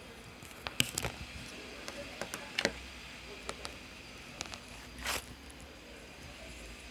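Handling noise from a mobile phone: a few scattered light clicks and rubs over a faint steady hiss, with no ringtone playing.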